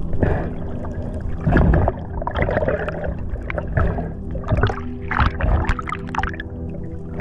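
Underwater water noise from a swimming diver: irregular rushing and gurgling surges of water against the camera, over a steady low hum.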